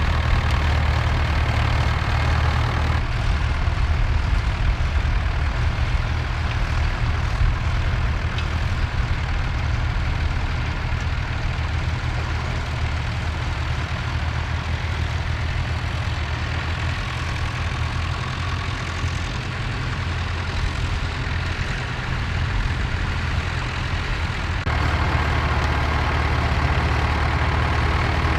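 Vintage David Brown and Massey Ferguson tractor engines running steadily as the tractors pull ploughs. The engine note changes abruptly about three seconds in and again near the end as the sound switches from one tractor to another.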